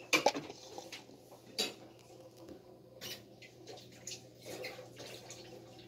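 Faint handling noise of clear plastic cups: a few light clicks and taps, one near the start, one about a second and a half in and one about three seconds in, with soft scraping between.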